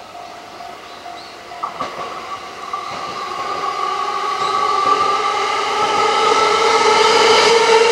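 JR Yokosuka Line E217-series electric train approaching and growing steadily louder: rail noise with a steady whine. A repeating ringing tone sounds for the first couple of seconds.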